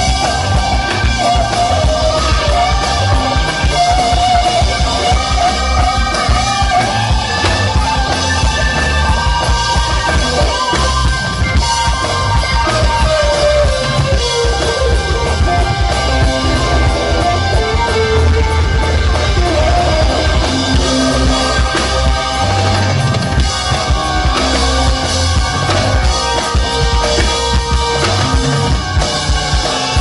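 Live rock band playing: electric guitar and keyboard lines over electric bass and a drum kit beat.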